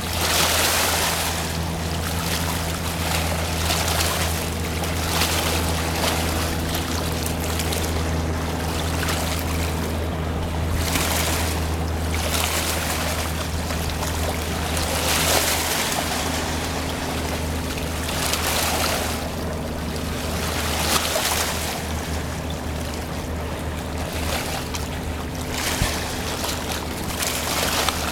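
Steady low drone of the Trillium side-paddle steamer's machinery under a rushing wash of water that swells and fades every few seconds.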